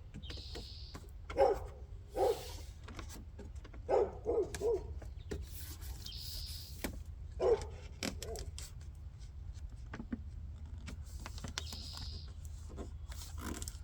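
A dog giving short whines and yelps, several in quick succession and then a few more spread out, over faint clicks and rubbing of hands working at a car door panel.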